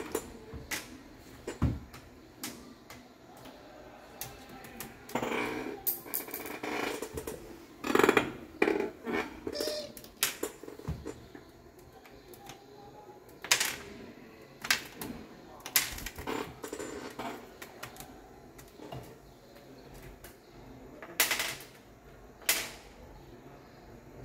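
Irregular light clicks and taps, some in quick runs, with quieter stretches between.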